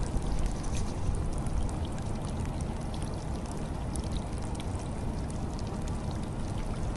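Water gurgling and sloshing against the side of a small boat's hull, over a steady low rumble.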